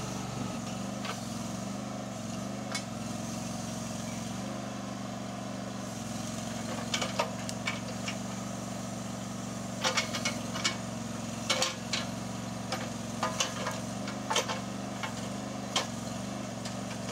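Tractor-mounted backhoe's engine running steadily while it digs a trench, with a scatter of sharp knocks from the bucket working the ground from about seven seconds in, most of them past the halfway point.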